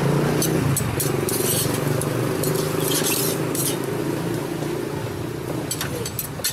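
An engine running steadily, slowly fading, with scattered light metallic clinks and scrapes of a spatula and lids on small cooking pans.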